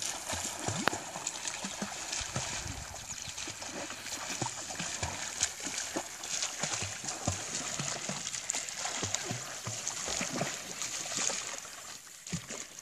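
Two children swimming with arm strokes, splashing the water in many small splashes one after another.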